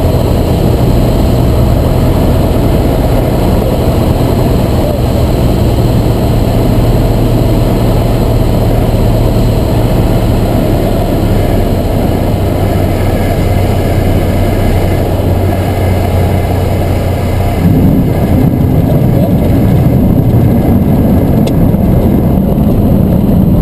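1956 Cessna 172's Continental O-300 six-cylinder engine, heard inside the cabin, running steadily at low power through the approach and touchdown of a soft-field landing on a grass strip. About eighteen seconds in, its note steps up in pitch and grows a little louder.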